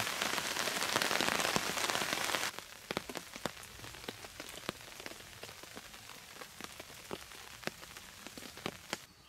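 Rain falling on a river's surface: a dense, steady hiss of rain for the first couple of seconds, then suddenly thinner, with separate drops striking the water one after another.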